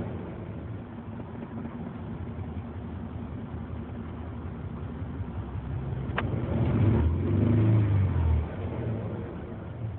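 1993 Ford Explorer's 4.0-litre V6 idling roughly with a misfire, briefly revved up about seven seconds in and dropping back to idle. A single sharp click just before the rev.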